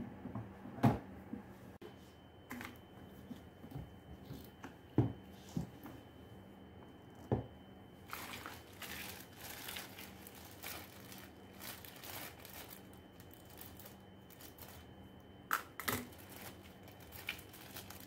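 A few sharp knocks in the first half as the yellow plastic body of a Kärcher WD1 vacuum is handled. Then bursts of crinkling and rustling plastic bags as the packed accessories are unwrapped, from about halfway and again near the end.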